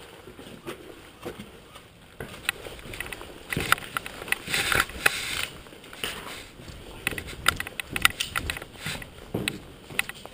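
Scattered sharp clicks, knocks and rustling from an airsoft player moving in gear with a pistol over rubble, with a denser spell of noise a little under halfway through.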